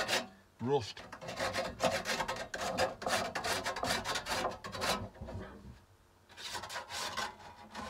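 Hand file rasping back and forth over the cut edges of slots in a sheet-metal vent cover, deburring them in quick repeated strokes. The strokes stop for about a second after roughly five seconds, then start again.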